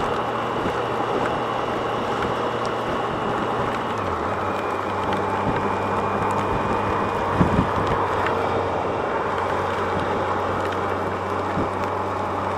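2007 Yamaha FJR1300A's inline-four engine running at road speed under steady wind noise on the microphone. Its note drops a step about four seconds in.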